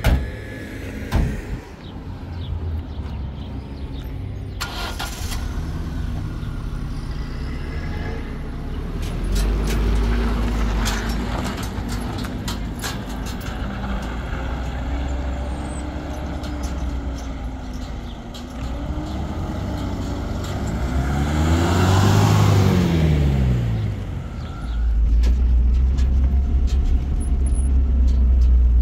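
A pickup truck's engine running as it pulls away and drives off, with two sharp knocks near the start. About 22 s in, a car passes close by and its engine note drops in pitch as it goes. After that comes a louder, steady low engine drone, as heard from inside a moving vehicle.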